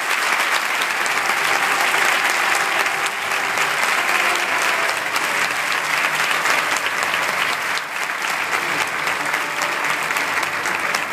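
An audience applauding steadily as a flag is handed over on stage.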